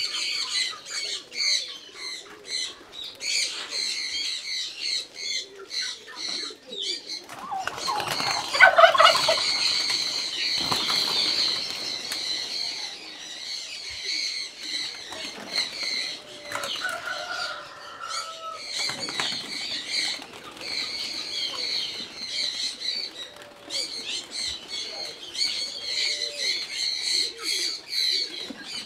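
Many small birds chirping continually, mixed with bird wingbeats. There is a louder, lower bird call about eight seconds in and another short call near the middle.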